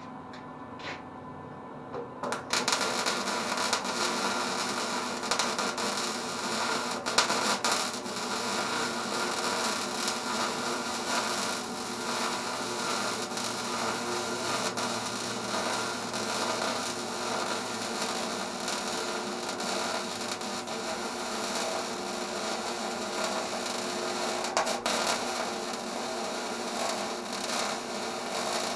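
Electric arc welding: the arc strikes about two seconds in and then runs as a steady crackling hiss with a hum, broken by a few sharp pops.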